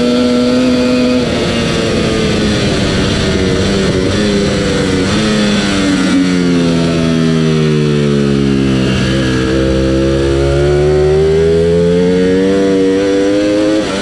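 Ducati Panigale V4 R's V4 engine flat out in sixth gear, then downshifted four times under hard braking. The pitch jumps up with each blipped downshift and sinks between them, lowest about nine seconds in. It then pulls hard in second gear, the pitch rising steadily through the corner exit.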